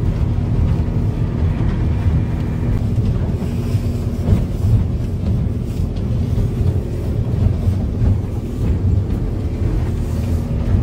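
Small motorboat's engine running steadily at speed, with water rushing along the hull.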